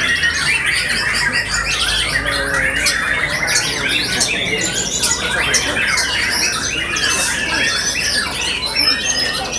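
White-rumped shamas singing at once in a dense chorus of caged contest birds: many rapid whistles and trills overlapping with no pause.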